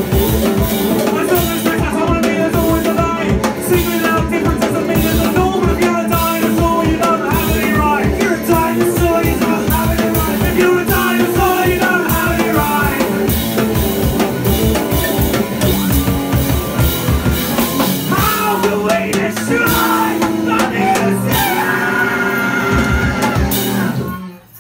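A live rock band playing: electric guitars, drum kit and sung vocals. The music cuts off abruptly near the end.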